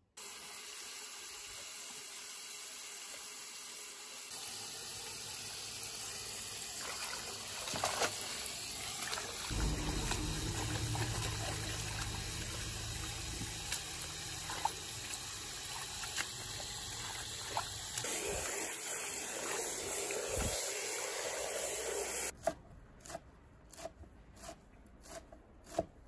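Water running from a hose into a large stainless steel basin as gloved hands swish and rinse wild greens in it. About 22 seconds in this cuts off and a kitchen knife chops greens on a wooden board, a run of sharp knocks.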